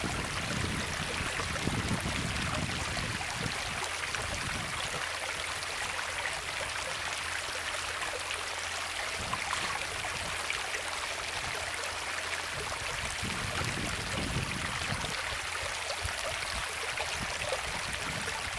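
Steady rushing hiss of flowing creek water, with a few low rumbles now and then.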